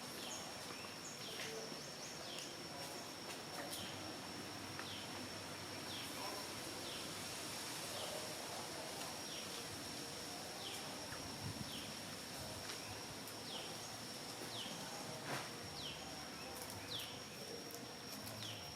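Natural outdoor ambience: a steady high-pitched insect drone, with a short downward chirp repeated about once a second and a few faint scattered clicks.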